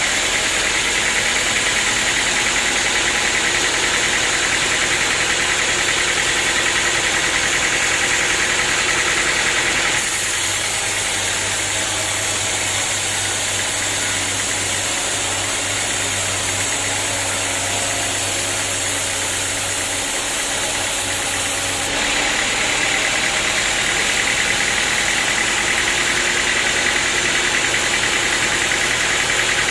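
Sawmill machinery running steadily: a loud engine-driven hum with a hiss above it. The sound changes abruptly about ten seconds in and again a little past twenty seconds in.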